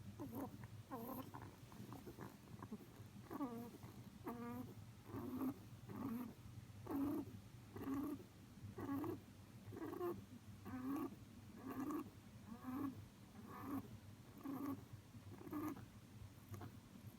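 Domestic rabbit snoring in its sleep: a short snore with each breath, about one a second, stopping shortly before the end.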